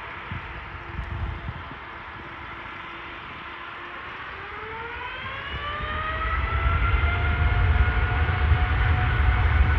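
Boeing 787-9 Dreamliner's jet engines spooling up for takeoff: a whine that rises in pitch about halfway through, then a low rumble that grows louder as takeoff power builds.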